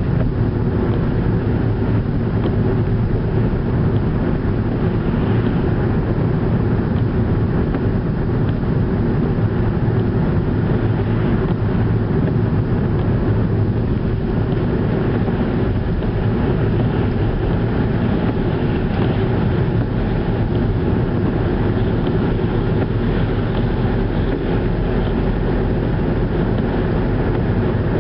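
Skoda Octavia taxi driving at a steady pace: an even, unbroken rumble of engine and road noise that holds steady throughout.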